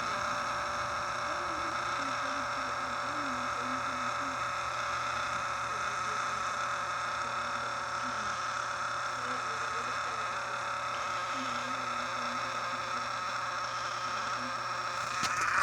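Air raid siren sounding, holding one steady pitch with many overtones, getting a little louder just before the end.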